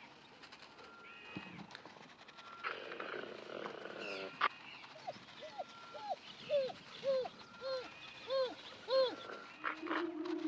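A wild animal giving a run of about nine short yelping calls, each rising then falling in pitch, about two a second, through the middle of the stretch. Faint high chirps come before it, and a steady low tone sets in near the end.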